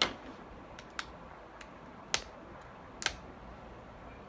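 A handful of sharp, separate plastic clicks and taps, about five spread over a few seconds, from small plastic toy packaging being handled and pried at while it resists opening.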